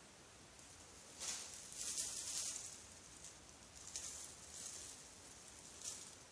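Soft rustling and scratching noises in several bursts: a longer one about a second in, then shorter ones around four and six seconds in.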